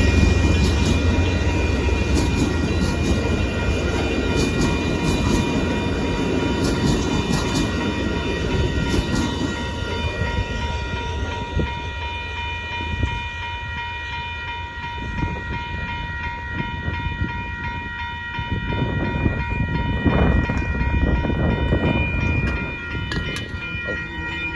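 Amtrak passenger train rolling slowly into a siding: a heavy low rumble that fades away over the first ten seconds or so, with sharp clicks of wheels over the rails during that time. Steady high ringing tones run throughout.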